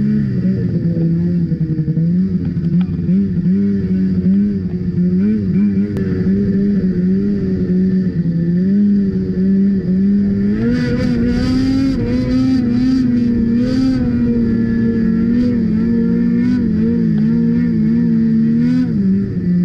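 Ski-Doo 600 RS snowmobile's two-stroke engine held at high revs under load while towing, its pitch wavering slightly as the sled skims over water and grass. A stretch of hissing and crackling rides over the engine about halfway through.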